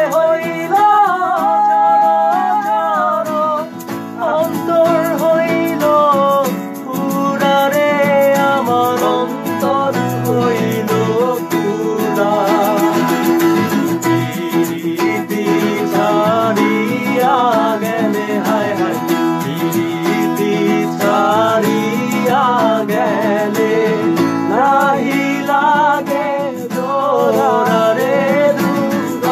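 Men singing a Bangla folk song with acoustic guitar accompaniment.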